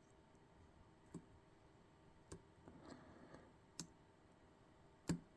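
Lock pick scrubbing the pins of an Almont ReKey pin-tumbler lock, probing for a binding pin: a faint scraping with four light metallic clicks, the last near the end the loudest.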